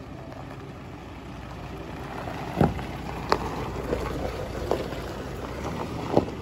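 A Ford Endeavour SUV rolling slowly over a gravel driveway, its engine running low and its tyres crunching the stones. The sound grows louder as it comes close, with a few sharp pops of gravel under the tyres.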